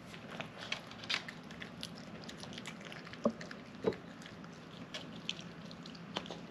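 Small Cavapoo dog eating a soft homemade venison-hamburger meal: irregular chewing and licking smacks, with two louder short knocks about three and four seconds in, over a low steady hum.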